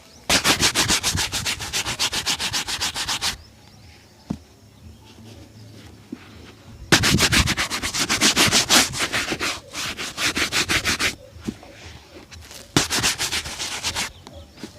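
A shoe being buffed during a shoe shine: rapid, even back-and-forth rubbing strokes, about seven a second, in three spells with short pauses between them.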